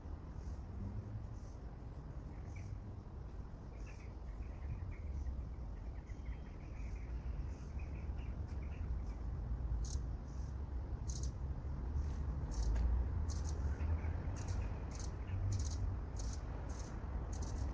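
Short, high chirps repeating about twice a second from a small chirping creature, faint at first and plainer from about ten seconds in, over a steady low rumble.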